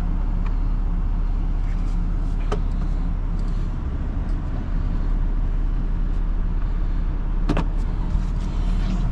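RAM pickup's engine running steadily, heard from inside the cab as a low hum. There is a sharp click about two and a half seconds in and a few more clicks near the end.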